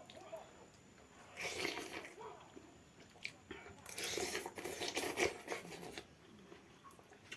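Close-up mouth sounds of someone chewing and biting food, in two stretches separated by quieter moments, with small crunches.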